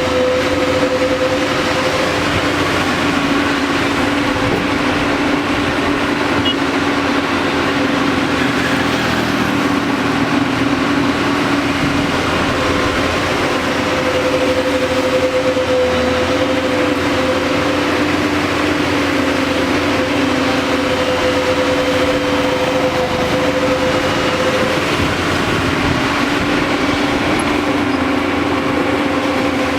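JCB backhoe loader's diesel engine running steadily under work, a constant drone with a steady hum.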